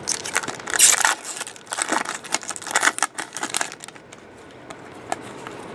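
Foil trading-card pack wrapper crinkling and crackling as a pack is torn open and handled: a busy run of sharp crackles for the first three and a half seconds or so, then quieter.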